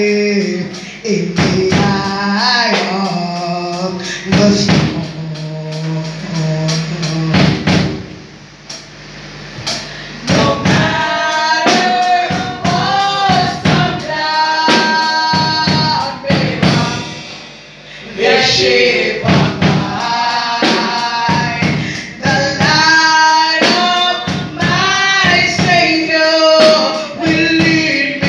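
A small church group of men and women singing a gospel worship song together over a steady beat. The singing thins out briefly twice.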